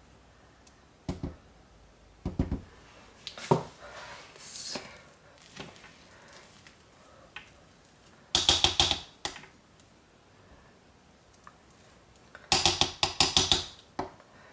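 Spatula knocking and scraping against the crock pot while thick, mashed-potato-stage soap paste is stirred and scraped down. There are a few single knocks at first, then two bursts of rapid clattering, about halfway through and near the end.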